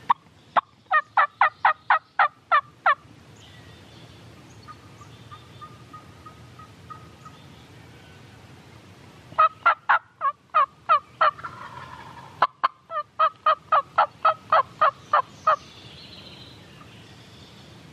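Hen turkey yelps made on a turkey call close to the microphone, in three runs of about eight to eleven notes at roughly four a second, calling to a gobbler. A sharp click falls between the second and third runs.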